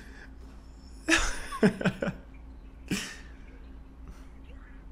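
Short snatches of a person's voice, about a second in and again briefly near three seconds, the second one breathy, over a faint steady hum.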